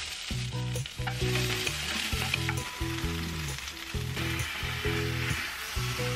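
Hot oil sizzling in a frying pan as chopped scallion, garlic and chilli are stir-fried, with a spatula stirring and now and then clicking against the pan. Background music with a steady melody plays underneath.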